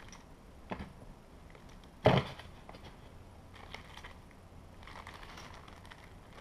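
Small hardware and plastic parts bags being handled on a workbench: a light click, one sharp knock about two seconds in, then faint rustling.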